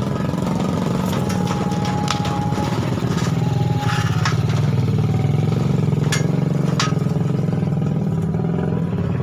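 A motor running steadily at an even speed, with a few light clicks and knocks over it.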